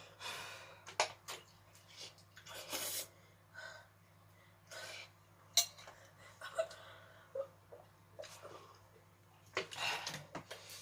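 A person breathing hard in short, irregular breaths and sniffs after eating very spicy instant ramen, with a few small clicks and knocks in between.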